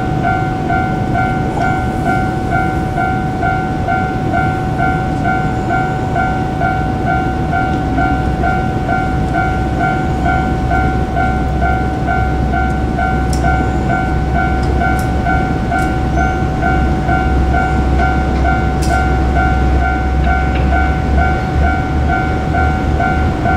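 Japanese level-crossing warning bell ringing in a rapid, steady electronic ding-ding. Under it the low rumble of a JR Kyushu KiHa 47 diesel railcar builds from about a third of the way in as the train approaches.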